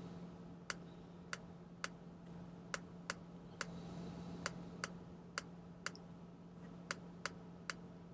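Sharp clicks of a computer mouse and keys being worked, a dozen or more single clicks, about two a second, over a faint low steady hum.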